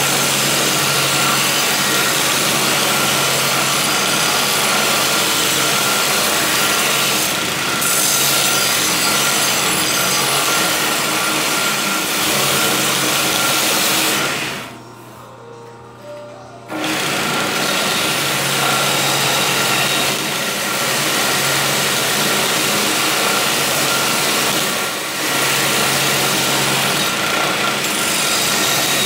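Homemade belt sander driven by a sewing machine motor, running with a workpiece pressed against the abrasive belt: a steady grinding hiss over a motor hum. The sound drops away for about two seconds a little past the middle, then starts again.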